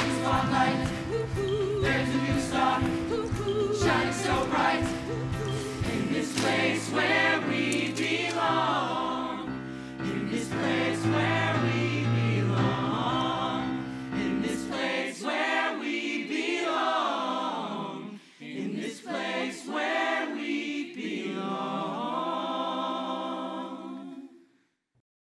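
Musical-theatre ensemble singing an upbeat pop show tune with a band. About fifteen seconds in, the drums and bass drop out and the voices carry on alone, building to a long held final chord that cuts off near the end.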